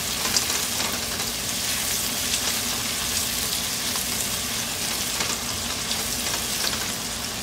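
Sliced onions sizzling in hot oil with whole spices as they fry toward light brown, stirred around the pan with a silicone spatula. A steady hiss with small crackles throughout.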